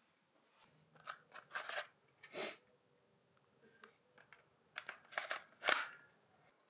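Semi-automatic pistol being handled: a scatter of short, sharp metallic clicks and clacks as its magazine is worked, the sharpest clack near the end.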